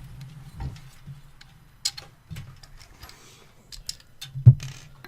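Scattered small clicks and taps from PC case parts and hardware being handled, with one louder knock about four and a half seconds in, over a steady low hum.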